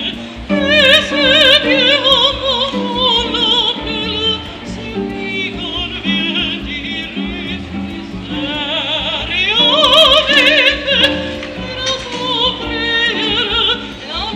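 Soprano singing opera with a wide vibrato, accompanied by harp. Her voice sweeps up to a loud high note about ten seconds in.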